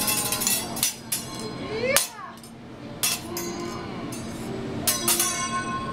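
Hibachi chef's metal spatula and fork clanking against the steel teppanyaki griddle: sharp metallic knocks with brief ringing, roughly once a second, two of them close together near the end.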